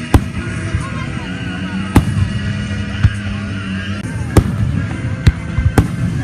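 Fireworks going off: about six sharp bangs spread over a few seconds, the loudest about four seconds in, over a continuous background din.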